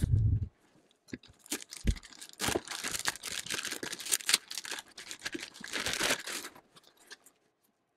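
Clear LDPE plastic bag crinkling and rustling as it is pulled off a NAS unit, with a soft bump at the start and another about two seconds in.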